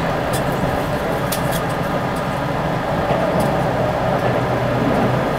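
Keisei Skyliner electric train running at speed, heard from inside the passenger car: a steady low rumble of wheels and motors, with a few light clicks.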